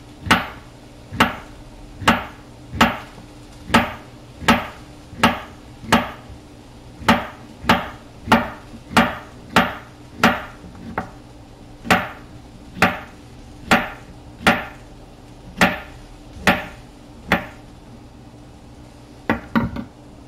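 Chef's knife chopping zucchini on a wooden cutting board: sharp, even knocks a little over one a second, which stop a few seconds before the end, followed by a quick double knock.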